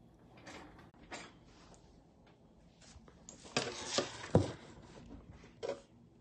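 Scattered clicks and rustles, with a cluster of knocks about three and a half seconds in that ends in one sharp thud.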